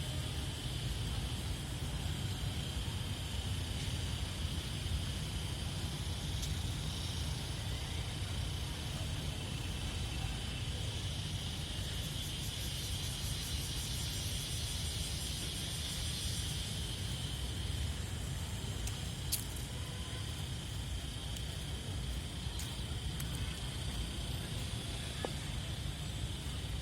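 Steady outdoor street ambience: a continuous low rumble of traffic with a steady high-pitched hiss over it, and a single faint click about two-thirds of the way through.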